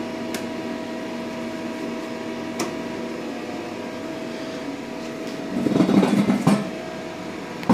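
Chip conveyor on a CNC lathe running after its start button is pressed: a steady electric motor and gear hum, with a click just after the start and a louder rattling for about a second around six seconds in.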